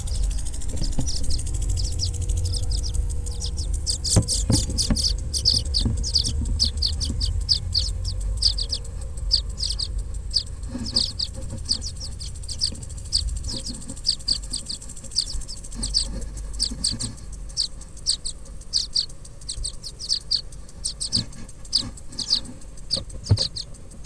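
Baby birds in a nest inside a house's air-vent duct, chirping in a fast, continuous run of short, high calls, several a second: begging calls. Low rumbling and a few knocks from the pole-mounted camera being handled in the duct lie under the calls, mostly in the first half.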